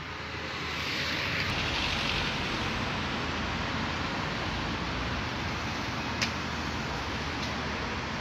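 City street traffic ambience: a steady rush of car and engine noise, with a short sharp click about six seconds in.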